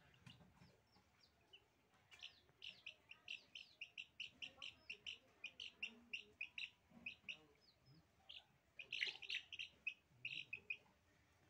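Young chickens peeping: runs of short, high chirps, several a second, with a louder flurry about nine seconds in.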